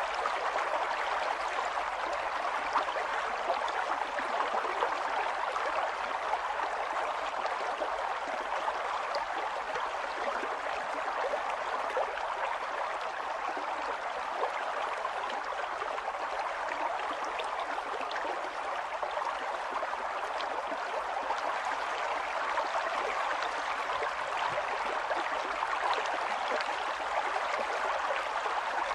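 Mountain water running and splashing steadily, a continuous babble of flowing water.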